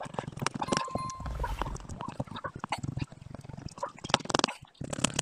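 Razor blade scraping cured windscreen-repair resin off the glass of a car windscreen, in short irregular strokes, with a brief squeak of the blade on the glass about a second in.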